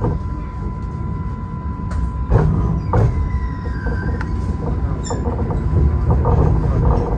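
Road traffic passing below a footbridge: buses and cars on a wet road, a steady low rumble with a few sharp knocks a couple of seconds in and a brief falling squeal just after.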